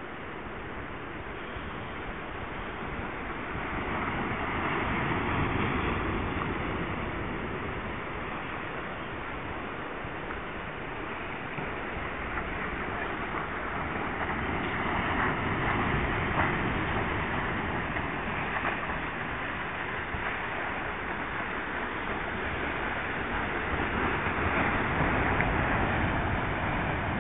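Sea surf breaking on the shore: a steady rush of water that swells and eases as waves come in, growing louder about three times.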